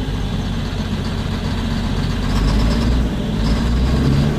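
Caterpillar C9 inline-six diesel in an MTZ 3522 tractor running steadily with its first cylinder's injector cut out. In that state it runs normally, which points to the first injector as the source of the knock.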